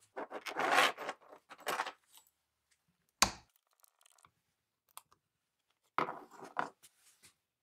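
Hands working on a chainsaw on a workbench. The saw chain clinks and rattles as it is handled off the bar, a single sharp knock comes a little after three seconds, and near six seconds there is a short clatter as the plastic air filter cover is pulled free.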